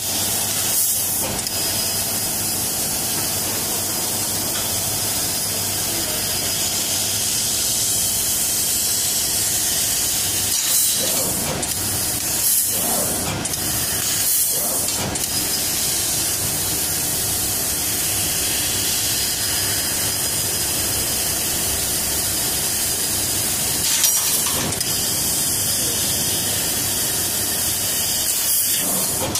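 Laser tube cutting machine at work: a steady, loud hiss runs on unbroken, with a cluster of short knocks about a third of the way in and another knock near the end.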